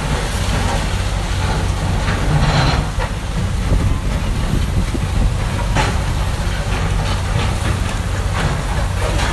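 Heavy demolition machinery running: a steady low diesel engine drone, with a few short cracks of debris over it.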